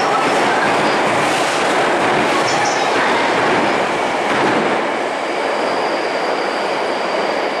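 A Tokyu 5050-series electric commuter train rolling past on a curve, its wheels clacking over the rail joints. About five seconds in a thin, steady high-pitched wheel squeal sets in as the sound begins to fade.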